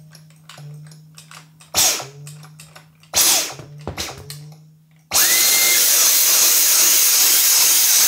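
Dyson V10 cordless vacuum's digital motor. At first a low buzz, which the repairer puts down to the stopping rotor vibrating in the strong magnet field, is broken by two short blips of the motor that each die away in a falling whine. About five seconds in, the motor starts and runs loud and steady.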